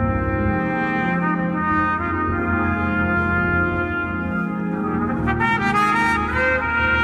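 Trumpet solo played live over a band, with bass underneath: long held notes, breaking into a quick run of notes about five seconds in.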